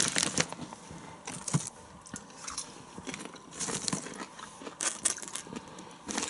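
Popcorn crunching as it is chewed, with the foil snack bag crinkling now and then as pieces are picked out of it, in short irregular bursts.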